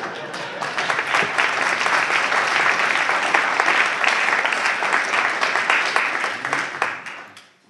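Audience applauding: a dense spread of clapping that builds over the first second, holds steady, then dies away about seven seconds in.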